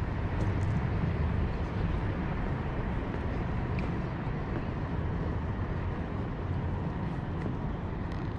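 Steady urban outdoor background noise, a low rumble of city traffic with a few faint ticks.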